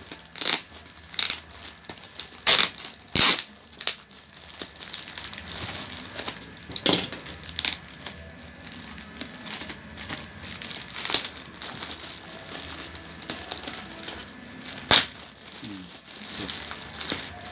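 Clear plastic bag crinkling and crackling as hands peel and pull it off a cardboard box, with irregular sharp crackles over quieter rustling between.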